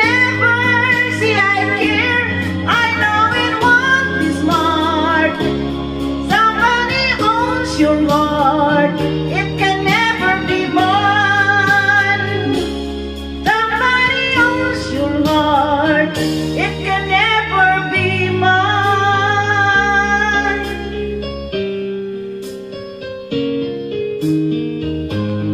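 A woman singing into a microphone over backing music. Her voice stops about 21 seconds in and the accompaniment plays on alone.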